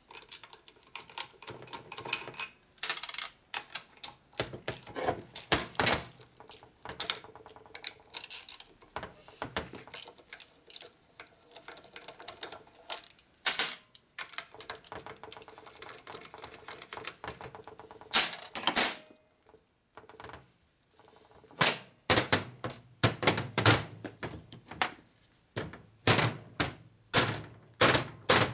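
Irregular metallic clicks and clinks of hand tools working on a cast transmission case: a T-handle socket wrench turning and knocking against the studs and nuts. The clicks come in quick clusters and grow denser and heavier near the end.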